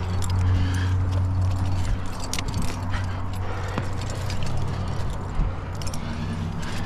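Climbing gear clinking and hands scuffing on granite as a climber moves up a crack, with scattered short clicks over a steady low hum.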